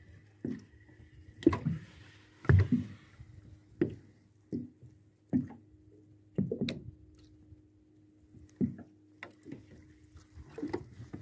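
A series of irregular dull knocks and thumps, roughly one a second and the loudest in the first three seconds, over a faint steady hum.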